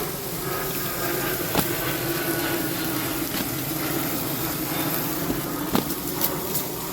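Marinated goat meat sizzling steadily on foil over a grill fire, with a few sharp pops and a faint steady low hum underneath.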